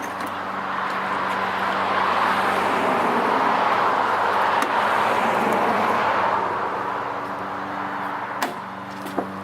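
A passing car's road noise swells and fades over about six seconds. Two sharp clicks come near the end.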